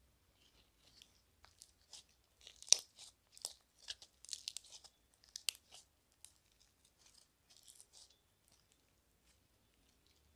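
Slime mixed with small foam beads being stretched, pressed and pulled apart by hand, giving irregular crackles, pops and sticky tearing sounds. The sharpest pop comes a little under three seconds in, and the crackling thins out after about eight seconds.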